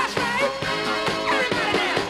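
Disco music with a steady beat and melodic lines that slide up and down in pitch.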